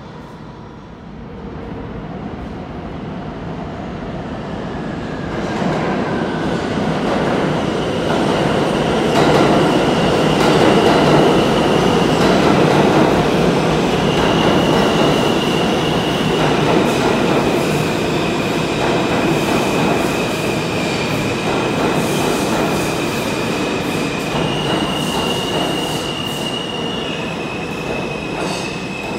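New York City subway train of R160 cars running through an underground station, its rumble building over the first several seconds and staying loud. From about seven seconds in, steady high-pitched wheel squeal rings out and shifts between a few pitches.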